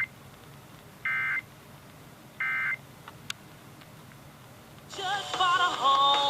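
Emergency Alert System end-of-message data bursts from a portable radio's speaker: the tail of one short burst of warbling digital tones, then two more about a second and a half apart, marking the end of a Required Monthly Test. About five seconds in, the station's programming returns with music.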